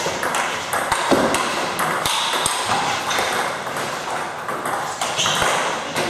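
Table tennis rally: the ball clicks sharply off the bats and bounces on the table again and again in quick succession.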